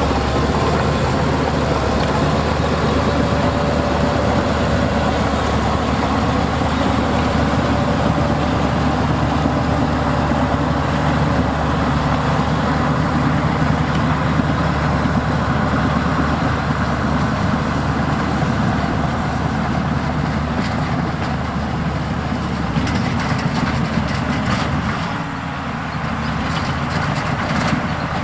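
Heavy diesel earthmoving machinery running steadily under load, with a brief dip in level shortly before the end.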